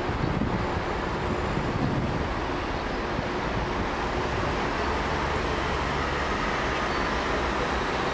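Steady road-traffic noise with a low engine drone that becomes steadier about halfway through.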